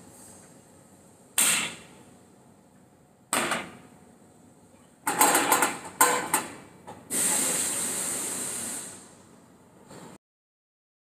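Metal knocks and clicks from a stainless-steel hospital stretcher's mechanisms being worked by hand and foot: two single knocks, then a quick run of clicks and clanks, then a longer rushing sound lasting nearly two seconds.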